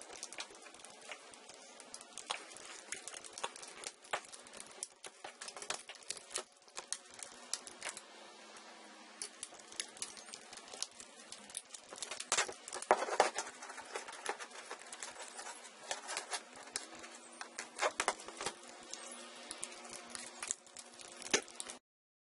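Plastic screen bezel of a Samsung NP305V5A laptop being pressed and pried off by hand: a run of irregular clicks and snaps as its clips pop loose, busiest about twelve to thirteen seconds in.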